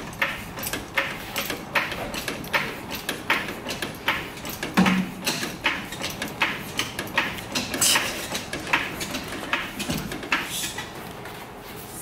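A jack being worked by a long handle under the rear of a pickup, raising it: regular clicks about two to three times a second, with a heavier clunk about five seconds in.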